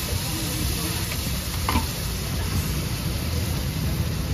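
Steady hissing noise with a low rumble underneath, like street-side ambience with frying or traffic in it.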